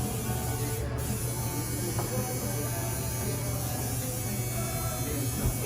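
Steady low electrical hum with faint, indistinct room noise over it.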